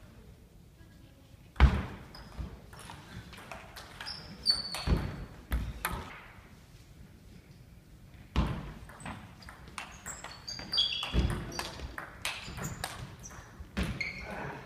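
Table tennis ball clicking off the bats and table in two quick rallies, with sneakers squeaking on the sports hall floor and footsteps, all echoing in the large hall. The sharpest hit comes just under two seconds in, with a short quiet pause between the rallies.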